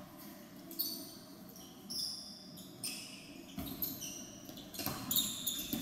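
Basketball game sounds on a hardwood gym floor: a ball bouncing and sneakers giving several short high squeaks as players move, in a reverberant hall.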